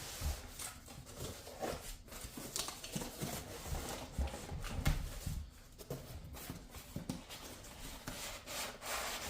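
Cardboard box being opened and handled: flaps and packaging rubbing, scraping and knocking against each other in an irregular run of rustles.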